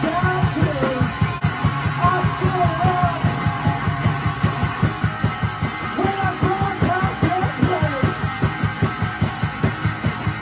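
Rock song with guitar and a singer over a fast, steady drum beat.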